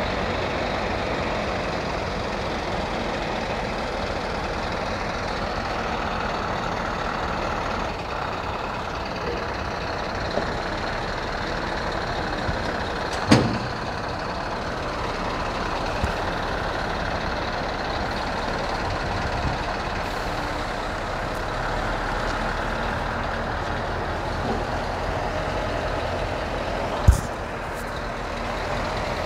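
Heavy prime mover's diesel engine running steadily while it tows a low-loader trailer carrying a train car. Two sudden, loud, sharp sounds cut in, one about halfway through and one near the end.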